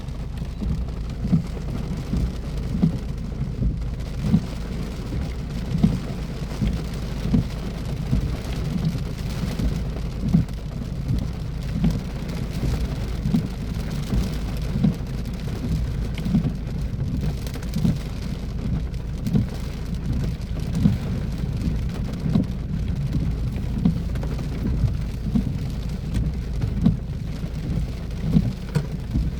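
Heavy rain falling steadily, with large drops landing close by as dull, irregular taps every second or so.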